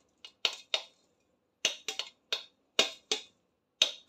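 Stainless-steel mesh strainer being tapped to sift ground almonds through it: about ten sharp metallic taps with a short ring, in uneven groups of two and three.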